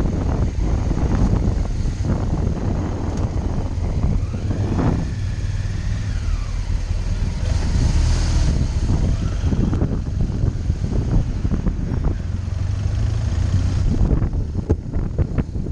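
Motorcycle engine running at low speed through a slow roll-past, then pulling away, with wind buffeting on the microphone near the end.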